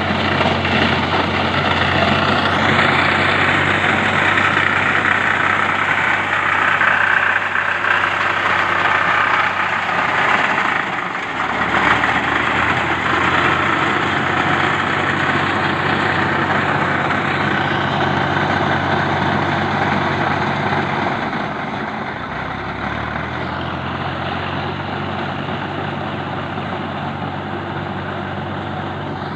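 Massey Ferguson 135 tractor's diesel engine running steadily while working a tractor-mounted reaper, with a brief dip in the engine note about a third of the way in and a slightly quieter, lower note from about two-thirds of the way on.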